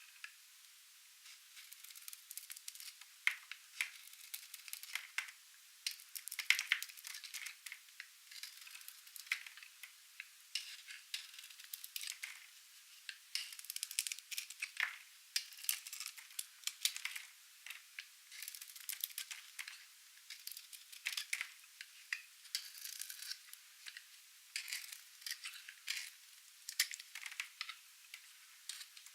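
Dry, painted soap crunching and crackling as it is cut, with a rapid, uneven run of crisp snaps and crumbles.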